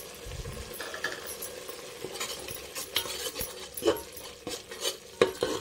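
A metal spoon stirring ginger-garlic paste into frying onion paste in a metal pot, with irregular scrapes and clinks against the pot, the loudest near the end, over a light sizzle of oil.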